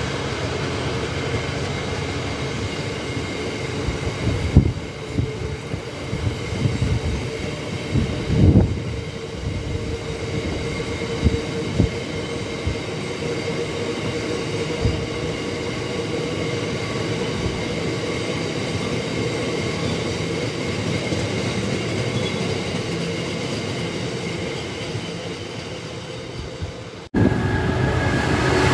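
Freight wagons rolling past: a steady rumble of steel wheels on rail, with a few steady whining tones and a few sharp knocks during the first twelve seconds or so. The sound cuts off suddenly about a second before the end, and louder train noise starts at once.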